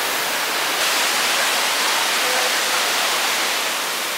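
Steady rushing hiss of falling water from a waterfall, a little louder from about a second in.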